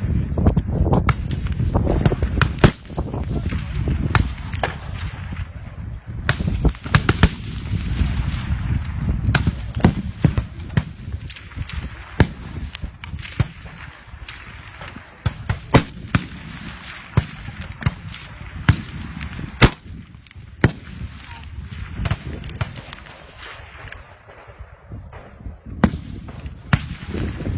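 Rifle fire on a shooting range: many sharp shots from several rifles at irregular intervals, sometimes several a second, over a steady low rumble.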